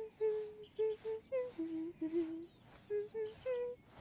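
A young woman's voice humming a simple, cheerful tune in about ten short separate notes that step up and down, with two lower notes about halfway through.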